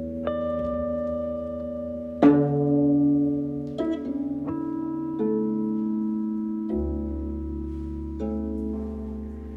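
Bass koto and electric guitar in a slow improvisation: about eight single plucked notes, each left to ring out, the loudest about two seconds in, over a low steady drone.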